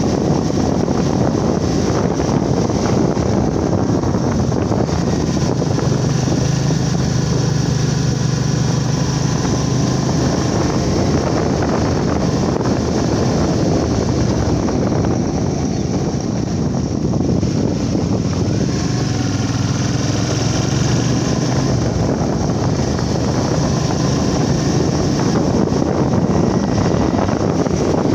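Wind rushing over the microphone of a moving motorbike, with the engine's low hum under it, stronger in the middle stretch and again later on.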